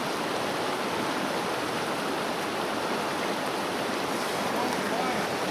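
Shallow, rocky river rushing steadily over its riffles.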